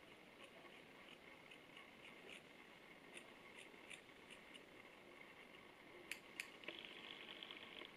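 Scissors snipping through a strand of long hair over near-silent room tone: faint small clicks, two sharper snips about six seconds in, then a rapid run of fine ticks for about a second.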